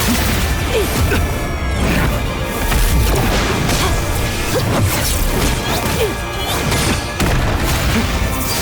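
Animation soundtrack of repeated crashes and impacts with whooshes, layered over music, loud and continuous throughout.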